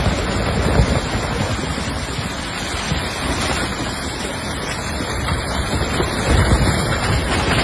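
Landslide of mud and rocks pouring down a steep hillside: a continuous rushing noise, with gusts of wind on the microphone that grow stronger near the end.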